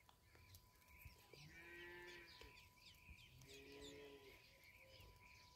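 Ducklings peeping faintly and continually, many short high chirps overlapping. Two longer, lower steady calls sound over them, about one and a half and three and a half seconds in.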